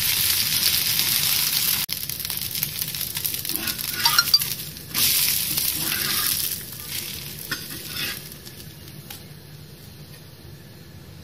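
Rava dosa sizzling in oil on a hot pan, with a few light clicks from a metal spatula. The sizzling fades away over the last few seconds.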